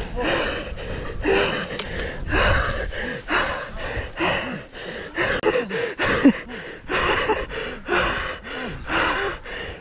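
A mountain biker breathing hard: rapid, heavy panting and gasping, about two breaths a second, some breaths voiced, as he recovers from an all-out race effort.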